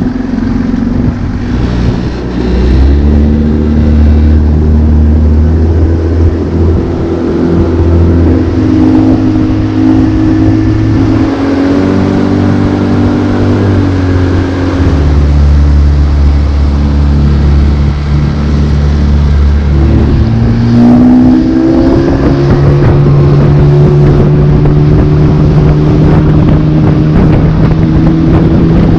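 Motorboat engine running under way, its note holding steady for a few seconds at a time and shifting up and down with the throttle, with a rising pitch about 20 seconds in.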